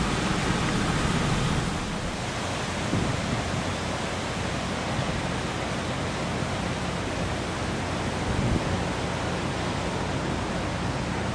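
Steady rushing noise of wind blowing on the microphone, an even hiss without any distinct events.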